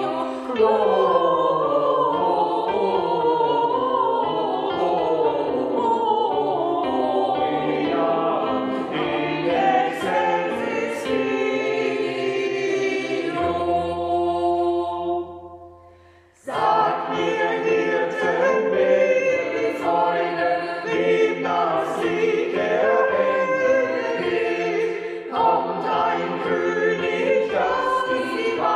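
Choir singing; about fifteen seconds in, a held chord fades out to near silence, and after a brief pause the choir comes back in.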